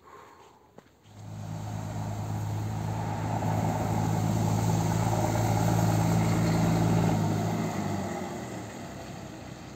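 A motor vehicle's engine running close by with a steady low hum. It starts about a second in, grows louder, then fades away near the end.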